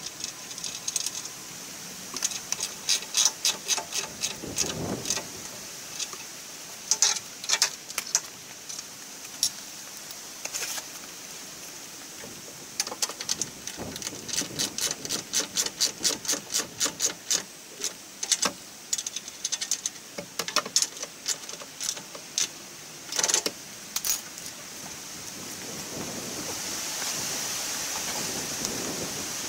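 A socket ratchet clicking in runs of quick strokes with pauses between, as bolts are turned on the underside of a steel hitch-mounted scooter rack.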